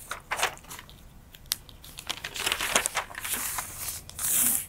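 Paper pattern pieces rustling and crinkling as they are handled and spread flat on a cutting mat, in irregular bursts with a louder, longer rustle near the end.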